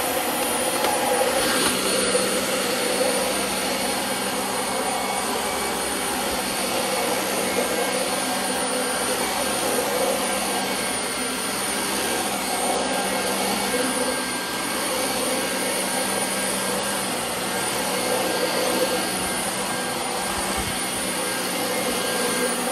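Dyson DC25 upright vacuum cleaner running steadily: a constant rush of air with a high steady whine from the motor.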